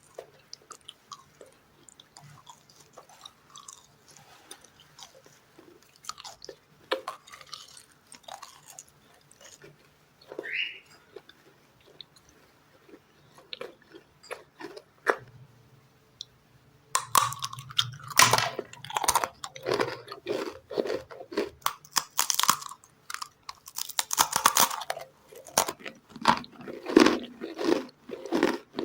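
Close-miked eating sounds of biting and chewing. Quiet, soft chewing with small wet clicks gives way a little over halfway through to loud, crisp crunching bites. A brief rising squeak sounds about a third of the way in.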